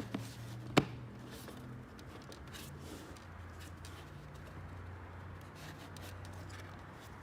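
A sharp plastic click about a second in: a fog light cover snapping into its clips in a Toyota Camry front bumper, the sign that it is seated. Light handling ticks follow over a steady low hum.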